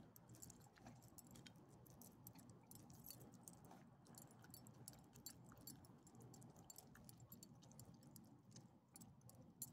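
Small dogs licking and chewing soft, chewed-up chicken from a person's hand: faint, scattered wet clicks and smacks, with a light metal jingle of collar tags and leash clips.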